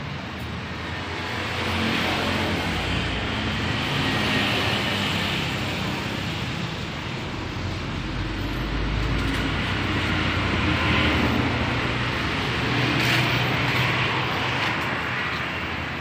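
Background road-traffic noise, a steady rumble and hiss that swells and fades several times as vehicles pass.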